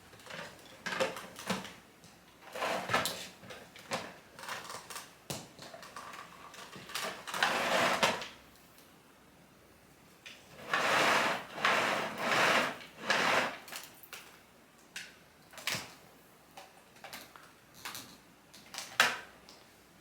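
Irregular clicks, knocks and short scraping rustles of hard objects being handled, with no motor running. The loudest stretches come about 7 s in, between about 11 and 13 s, and as a sharp knock near the end.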